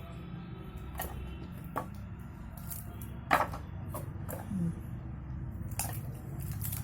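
Scattered light taps and clicks from hand work on small motor parts, about seven in all, the loudest a little past a third of the way in, over a steady low hum.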